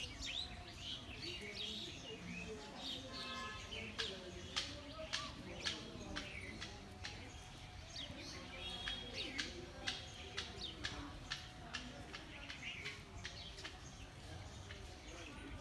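Small birds chirping, with many short, sharp calls repeating throughout over a low, steady background hum.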